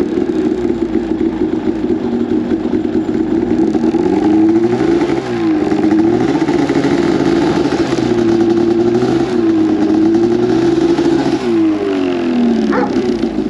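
A vehicle engine running, its revs rising and falling several times. A thin, wavering high whine comes in near the end.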